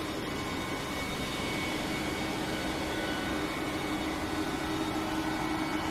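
CLAAS Lexion 8800 combine harvester running steadily under load, a constant engine and machinery hum with a steady drone.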